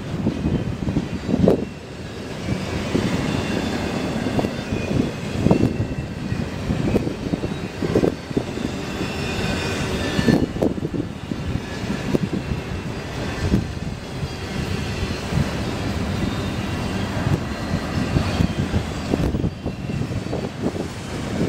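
Double-stack intermodal freight train's loaded well cars rolling past: a steady rumble of steel wheels on rail, with repeated knocks as the wheelsets pass and a faint high squeal running through much of it.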